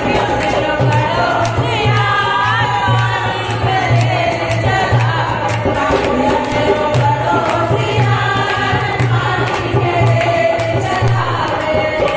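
Women singing a Navratri languriya folk song together into microphones, over a steady drum beat and rhythmic hand claps.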